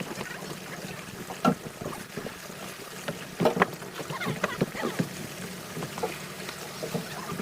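Fishing boat's engine humming steadily, with scattered knocks and clatter on board, the loudest about one and a half and three and a half seconds in.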